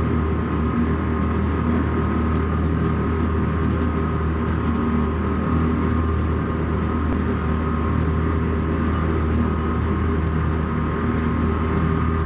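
Steady drone of a boat's engine running at constant speed: an even low hum with a fainter whine above it, heard through a badly worn, hissy magnetic film soundtrack.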